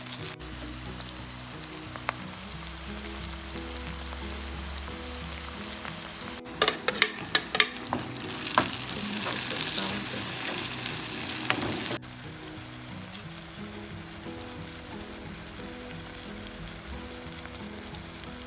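Food sizzling as it fries in a pan and is stirred, with a quick run of sharp clacks of the utensil against the pan about seven seconds in, followed by a few seconds of louder sizzling.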